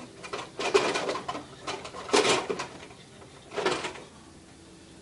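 Hands rummaging through Nerf ammo in a plastic storage bin: a few short bursts of rattling and rustling.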